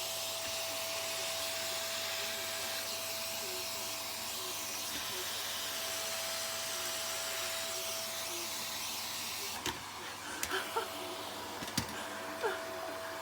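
Vacuum cleaner running steadily with a constant high whine over its noise. In the last few seconds, a handful of sharp clicks and knocks.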